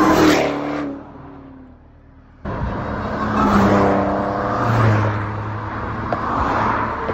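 Performance car engines revving hard under acceleration. The first engine note fades with falling pitch within the first second. After a short lull, a loud engine note cuts in at about two and a half seconds and rises, then stays loud.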